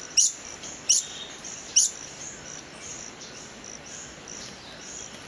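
Long-billed hermit hummingbird calling at normal speed: three short, sharp, very high chirps, each falling steeply in pitch, within the first two seconds, followed by fainter high notes. A steady high insect buzz runs underneath.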